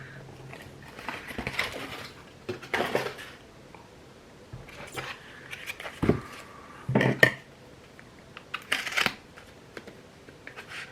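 Hot sauce bottles and their packing being handled and moved about, in a string of short, irregular rustles and knocks.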